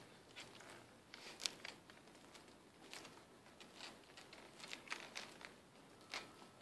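Faint, irregular clicks and crackles from quad stilts made of metal crutches as a person takes slow steps on them over dry grass, a sharp tick every second or so.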